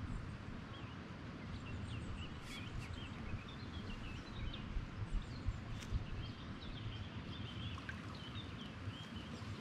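Small birds chirping and twittering in quick, irregular short calls over a steady low outdoor rumble.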